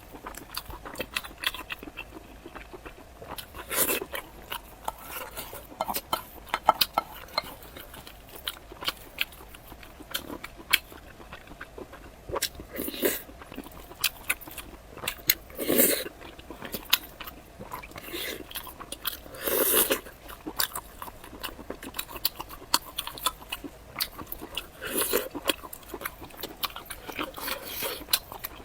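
Close-miked eating: steady chewing with many small wet mouth clicks, and a few louder bites or slurps about 4, 13, 16, 20 and 25 seconds in.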